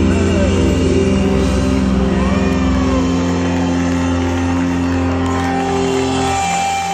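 Live electric blues-rock band holding out a loud closing chord, electric guitar ringing with sliding bent notes over bass and drums. The lowest bass notes drop away about three seconds in, leaving the upper notes sustaining.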